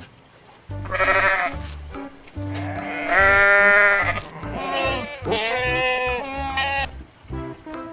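Sheep bleating several times, each bleat a wavering call of about a second, with the longest and loudest in the middle, over background music with a steady bass line.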